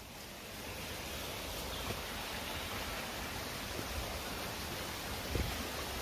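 Steady rushing hiss of falling water from a waterfall.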